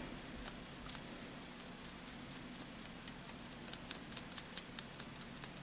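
Faint, irregular light ticks and rubbing as a gloved fingertip works wax Gilders paste along the raised edge of a small brass angel-wing charm.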